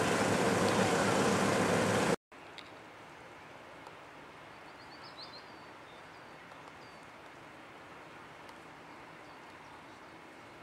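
About two seconds of loud, steady rushing noise that cuts off abruptly. Then comes quiet outdoor air with a few faint bird chirps and ticks.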